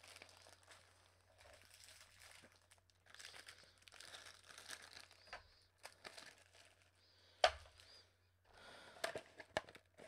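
Hands opening and handling a cardboard candy box, its packaging rustling in short spells, with one sharp snap about seven and a half seconds in.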